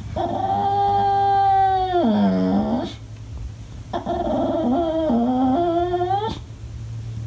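English bulldog crying in two long, drawn-out, Ewok-like calls. The first holds steady and then drops in pitch; the second wavers and rises at the end. It is a fit thrown for attention when nobody is playing with him.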